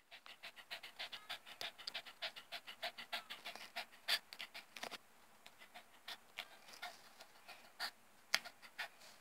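Dog panting fast from the heat, mouth open and tongue out, at about four to five quick breaths a second. About halfway through, the panting slows into fewer, more irregular breaths.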